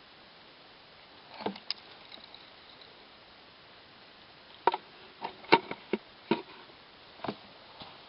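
Fishing rod and tackle being handled: sharp clicks and knocks, a couple about a second and a half in, then a quick cluster about five to six seconds in and one more near the end.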